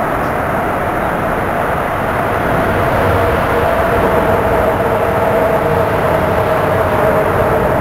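A steady engine drone with a held mid-pitched whine, a second lower tone joining and the whole sound getting a little louder about a third of the way in.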